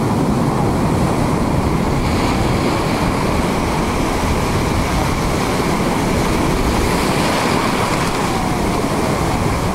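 Sea surf breaking over rock ledges and washing across the rocks, a steady rush of waves.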